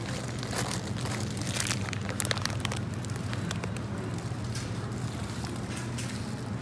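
Thin plastic produce bag crinkling and crackling in irregular sharp clicks as it is handled, over a steady low hum.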